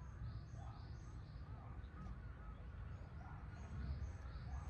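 Outdoor ambience: small birds chirping in short, high, repeated calls over a low steady rumble, with faint voices in the background.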